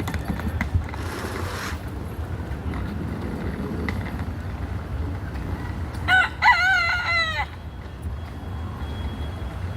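A rooster crows once, about six seconds in, one call of about a second and a half that rises and then falls away. A steady low rumble runs underneath.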